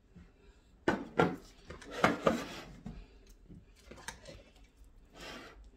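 Metal serving spoon knocking and scraping against a cooking pot and a ceramic plate as food is dished up: a run of sharp clinks and scrapes, loudest about a second and two seconds in.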